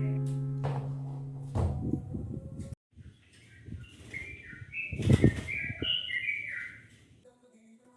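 A held musical chord fades away, then after a short break small birds chirp in quick, varied phrases for about four seconds, with a brief rustle in the middle.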